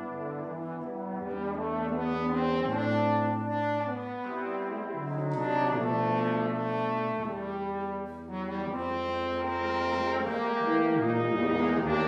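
Brass quintet of two trumpets, French horn, trombone and tuba playing a slow ballad arrangement in held chords, the tuba moving the bass line from note to note every second or two. There is a brief break between phrases a little past the middle.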